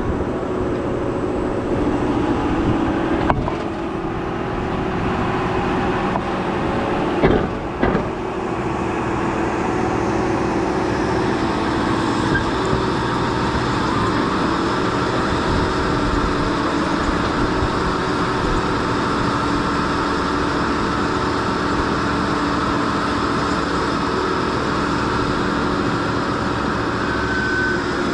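Large farm tractor's engine running steadily under load in field work, with a sharp knock about three seconds in and a couple more around seven to eight seconds in.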